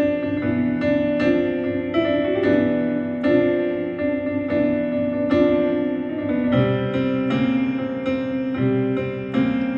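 Piano or keyboard music: a melody of struck notes, each ringing on, about two a second. Lower bass notes join in about six and a half seconds in.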